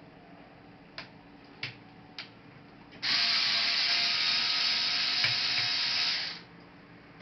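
Three light clicks, then a loud, steady mechanical whirr of a tool that starts abruptly about three seconds in and cuts off about three and a half seconds later.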